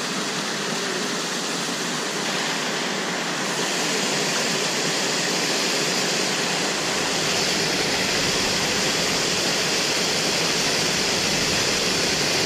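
Water pouring over a small dam's spillway into a pool: a steady rushing whitewater noise that gets louder a few seconds in.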